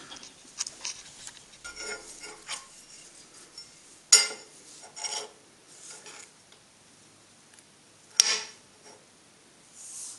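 A cast-aluminium Mini cylinder head plate and other metal pieces handled on a steel workbench. Light clinks and scrapes give way to a sharp metal knock about four seconds in and another a second later. The loudest knock, with a short ring, comes about eight seconds in.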